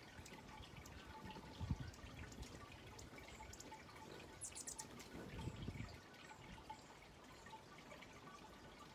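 Faint backyard ambience: scattered soft ticks and faint high chirps, with a quick run of four high chips about four and a half seconds in and a couple of low soft thumps.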